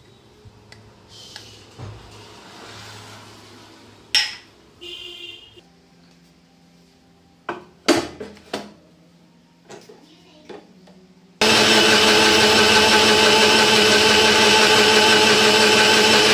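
An electric kitchen mixer-grinder is switched on about two-thirds of the way in and runs loud and steady with a constant motor hum. Before that come a few sharp knocks and clatters as the jar and utensils are handled.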